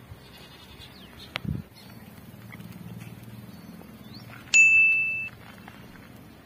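A single high, steady ding-like tone, starting suddenly about four and a half seconds in and lasting under a second. Earlier there is a faint low thump.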